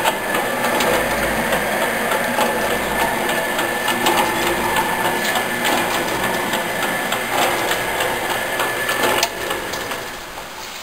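Sanches Blanes metal shaper running: a steady motor whine under a busy mechanical clatter of gearing and ram strokes, which stops about nine seconds in, leaving an even hiss.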